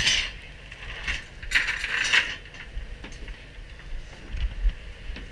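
Metal gear on a boat deck clinking and rattling in a few short bursts, the loudest right at the start and around two seconds in. Wind buffets the microphone near the end.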